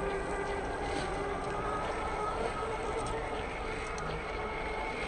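Scale RC crawler truck's small electric motor and geared drivetrain whining steadily as it drives, with some wind noise on the microphone.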